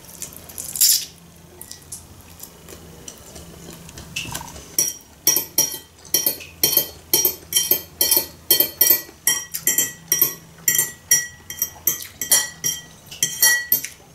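A short slurp of noodles near the start. Then, from about five seconds in, a metal fork clinks and scrapes against a china bowl in quick repeated taps, about two or three a second, each with a brief ring.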